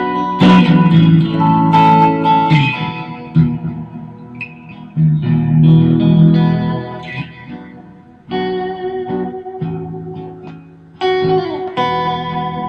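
Electric guitar, a Fender Stratocaster, played through an amp: picked notes and chords struck a few times and left to ring and fade between phrases, with the pitch wavering briefly near the end.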